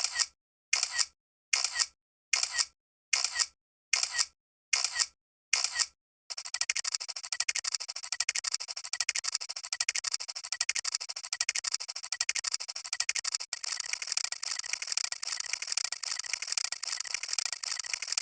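Camera shutter sound effect repeating: about ten separate shutter clicks, roughly one every two-thirds of a second. About six seconds in they give way to a dense, continuous clatter of many overlapping shutter clicks.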